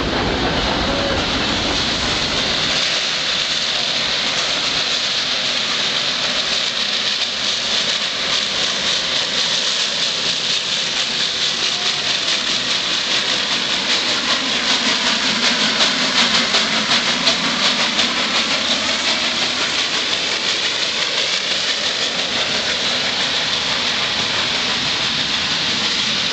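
1949 SLM-built 0-8-2T steam tank locomotive chugging uphill as it pushes passenger carriages, with hissing steam exhaust and wheels clicking over the rail joints. It grows loudest a little past halfway, as the engine passes close, then fades as it moves away.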